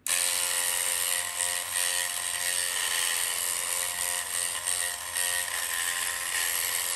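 Handheld electric dreadlocks machine running steadily as it is worked through a customer's hair: an unbroken motor buzz with a high hiss above it. It cuts in abruptly.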